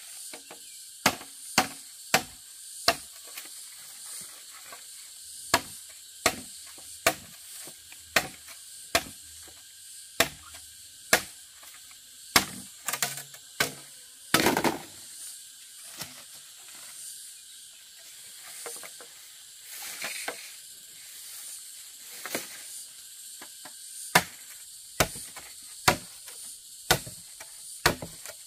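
Machete blade chopping at a green bamboo pole: a run of sharp strikes, about one to two a second, coming in bursts with short pauses, over a steady high hiss.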